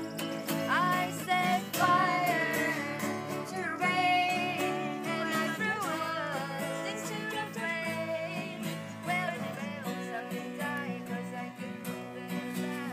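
Two acoustic guitars strummed together while women's voices sing a melody over them. The singing thins out about ten seconds in and the guitars carry on.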